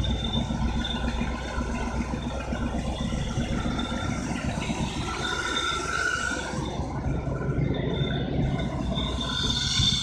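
1972 Corvette Stingray's V8 engine idling steadily, on its first start after sitting for a while.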